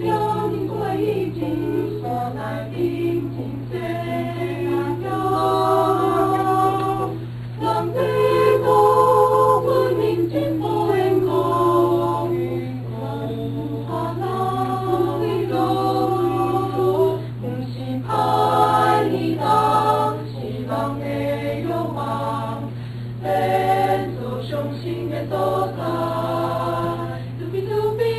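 Choir singing in several parts, sustained chords that swell and ease in loudness, with a steady low hum underneath.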